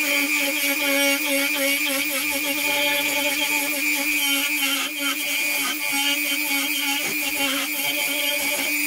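Dremel 4000 rotary tool running at a steady whine with a wide milling bit, carving a hollow into wood; the hiss of the cutting flickers as the bit is worked across the pit.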